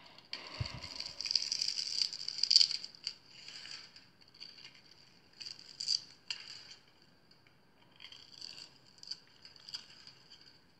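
Knife shaving along a bar of soap scored into a fine grid, so tiny soap cubes crackle and break off onto a pile. There is one long crisp scrape in the first three seconds, then several shorter scrapes.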